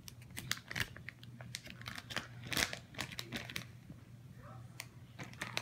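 Plastic bags of wax melts crinkling and rustling as they are handled, in short, irregular crackles over a faint steady hum.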